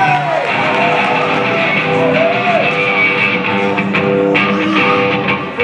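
Electric guitars played loudly through an amplifier in a live rock band, with notes bent up and down in pitch.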